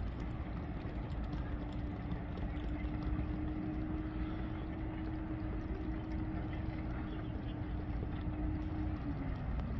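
A passing motor launch's engine running with a steady hum that drops slightly in pitch near the end, over a constant rush of background noise.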